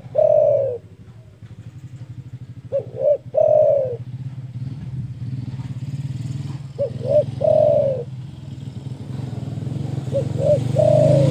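Spotted dove (derkuku) cooing loudly: four phrases, about one every three and a half seconds, each two short coos followed by a longer drawn-out coo. A motor vehicle engine runs underneath and gets louder near the end.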